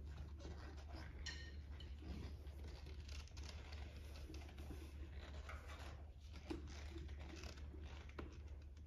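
Faint scattered rustles and light clicks from a player moving at a set of timpani, over a steady low room hum.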